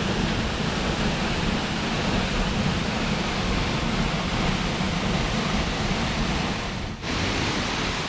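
A waterfall pouring through a hole in a rock ledge and splashing into a plunge pool, making a steady rushing sound. It drops out for a moment about seven seconds in.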